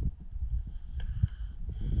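Rumble and irregular low knocks from a camera being carried and jostled as a diver walks, with faint steady high-pitched tones that return near the end.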